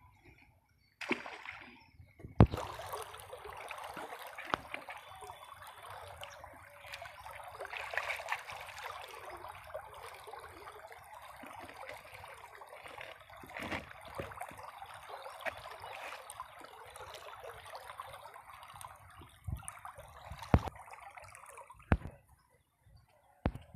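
Water trickling and sloshing, with a sharp knock about two seconds in and a few more knocks near the end.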